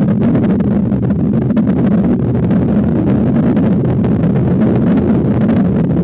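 Rushing water heard from a camera held underwater: a loud, steady, muffled low rumble.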